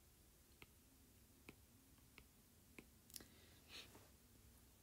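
Near silence: room tone with a few faint, short clicks, roughly one every half second to second, and a soft breathy sound near the end.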